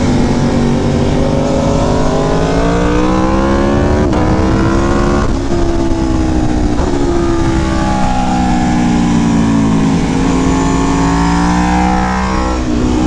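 Aprilia Tuono V4 Factory's V4 engine through a Leo Vince exhaust, ridden hard. The pitch climbs through the revs and drops back several times as the throttle is rolled off or gears change, with heavy wind rush on the microphone.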